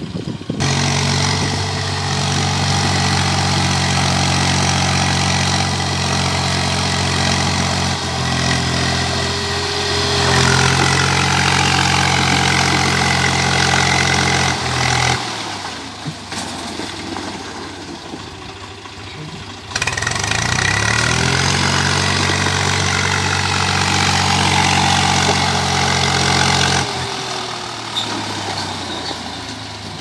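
Farm tractor's diesel engine running under load as it pulls a loaded trailer through mud, holding a steady note; about halfway through it falls away for a few seconds, then its pitch climbs back to the same steady running.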